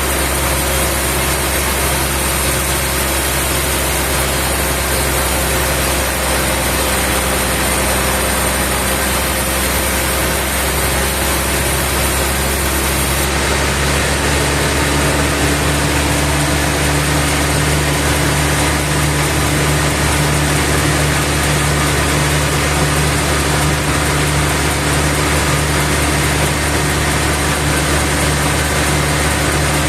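Sawmill machinery running steadily, an engine-driven drone with a constant hum; its tone shifts about 13 seconds in.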